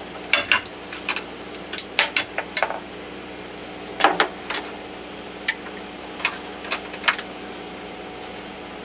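Wrenches and metal parts clinking against the CNC router's collet while the router bit is changed out: a scattered run of sharp metallic clicks that stops about seven seconds in, over a faint steady hum.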